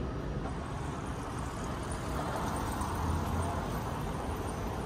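Street traffic noise with a car passing, swelling about two seconds in and easing off near the end.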